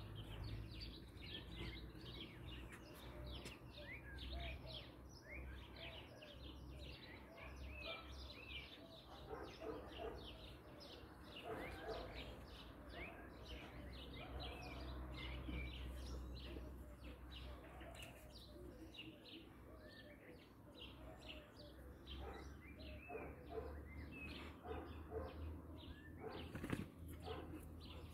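Many small birds chirping at once, a dense chorus of short, quick calls, over a faint low rumble.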